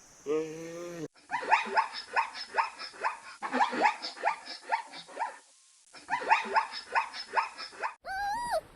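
An animal barking in rapid short, sharp calls, about three a second, with a brief pause partway through.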